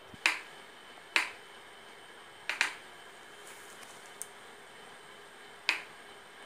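Sharp clicks, five in all: one just after the start, another about a second later, a quick pair in the middle and a last one near the end, over a faint steady hiss.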